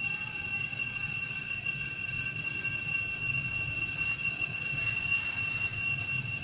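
A steady, high-pitched whine held at one pitch, with a faint low rumble beneath.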